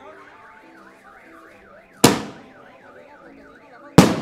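Two thunder bombs (large aerial firework bombs) go off about two seconds apart, each a single sharp, very loud bang with a trailing echo. Under them a car alarm keeps up a rising-and-falling warble, about two cycles a second.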